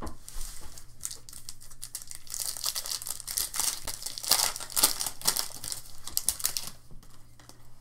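Silver foil wrapper of a 2014 Bowman Chrome football card pack crinkling and tearing as it is ripped open by hand: a rapid, dense crackle, loudest in the middle, that stops about a second before the end.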